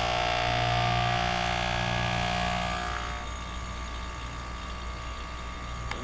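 2008 Goodman 3-ton packaged heat pump running through a defrost cycle: a steady hum with a hiss that falls away about three seconds in, leaving a quieter low hum.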